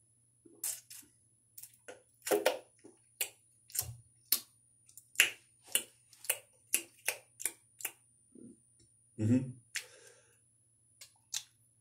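A person gulping soda from a plastic bottle and then smacking their lips while tasting it: a string of short clicks, two or three a second, with a heavier throaty sound about nine seconds in.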